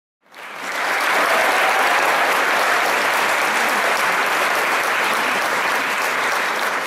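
Audience applauding steadily, cutting in abruptly at the start.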